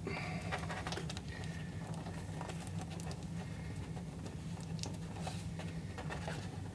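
Soft rustling and light taps of packing tape being pressed and smoothed down by hand onto a template, with a short crinkle in the first second. A steady low hum runs underneath.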